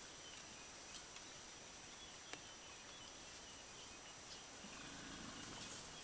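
Quiet forest background with a steady high insect hum, a few faint snaps, and a brief low sound lasting about a second near the end.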